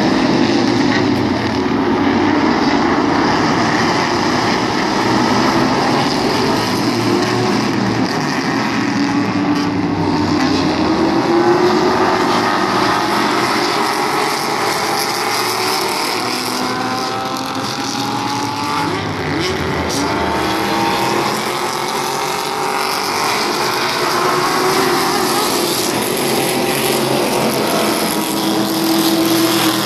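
Continental Tire SportsCar Challenge race cars running past in a pack, many engines overlapping and each rising and falling in pitch as they accelerate and shift, the field getting back up to speed on a restart after a caution.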